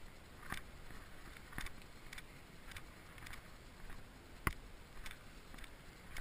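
Footsteps on a dirt and gravel path: irregular short crunches, about one to two a second, with one sharper knock about two-thirds of the way through, over a low steady background hiss.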